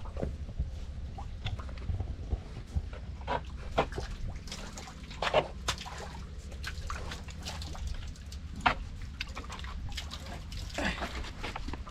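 Water dripping and splashing in irregular drops as dirty water is bailed out of a hand-dug well.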